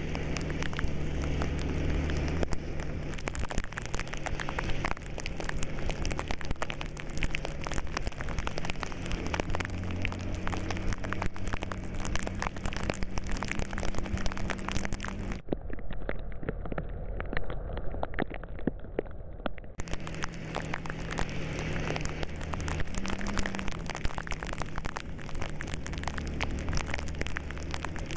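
Rain pattering with dense crackling drops, over a vehicle engine running low whose pitch steps up and down every few seconds. For about four seconds past the middle the sound turns muffled, losing its top end, then comes back.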